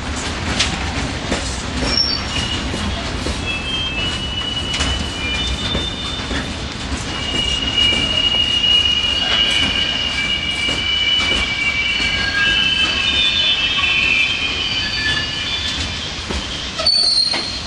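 A freight train of covered hopper wagons rolling past, with a steady rumble and clicks from the wheels. A high-pitched squeal from the wheels comes in after a few seconds and is strongest through the middle. The sound drops out briefly near the end.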